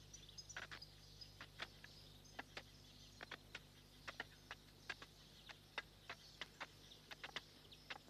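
Near silence: faint ambience with scattered soft clicks at irregular intervals, and a few faint high chirps in the first second and a half.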